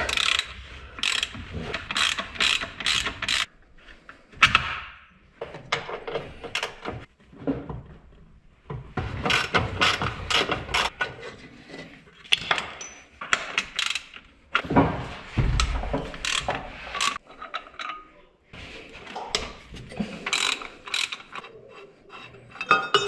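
Socket ratchet wrench clicking in repeated bursts of rapid ratcheting strokes, with pauses between them, while engine-mount bolts are undone. A dull knock about two-thirds of the way through.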